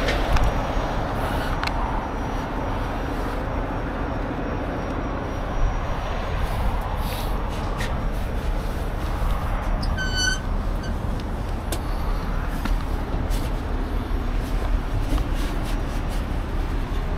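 Steady rumble of idling heavy rotator tow trucks and road traffic. A short, high squeak comes about ten seconds in.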